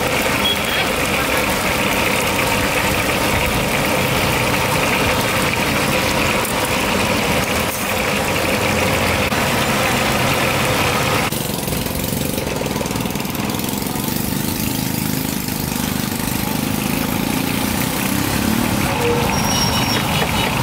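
Busy street noise dominated by engines running steadily. The sound changes abruptly about halfway through, with much of the middle range dropping away.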